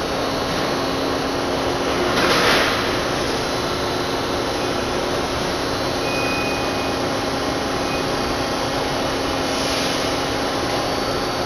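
Steady machinery noise of a rockwool sandwich panel production line running, with a low steady hum under it; a brief louder rush of noise about two seconds in.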